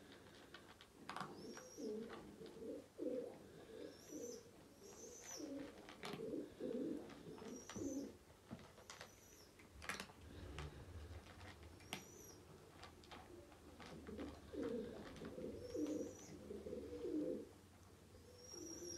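Pigeons cooing in low, pulsed phrases in two bouts, one starting about a second in and another around fourteen seconds, with short high chirps from a small bird repeated throughout. Scattered sharp clicks come from a cat crunching food from its bowl.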